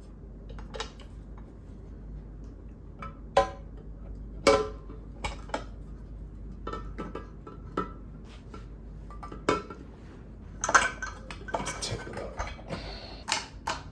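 Gas tank and its mounting brackets on a Lawn Boy 3052 mower shroud being fitted by hand: scattered light clinks and knocks, with a busier run of them near the end.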